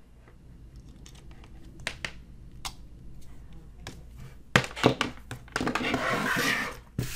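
Handling noise of a charger and USB cables on a desk beside clear plastic packaging: a few faint clicks, two sharp knocks about halfway, then a crinkling rustle near the end.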